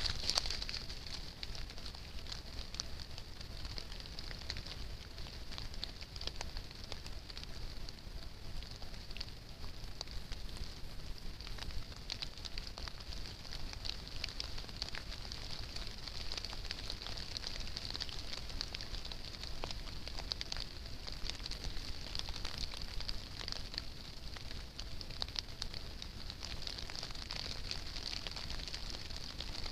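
Trail camera's microphone recording a steady hiss with faint, scattered crackling ticks and a low rumble, the camera's own noise floor with no clear animal sound standing out.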